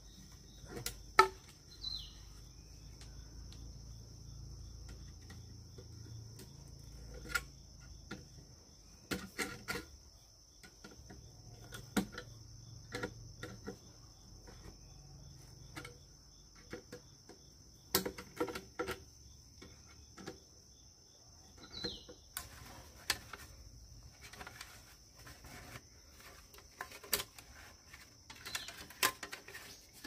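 A steady high insect drone, with scattered light knocks and clicks at irregular intervals and two short falling chirps, about two seconds in and again near 22 seconds.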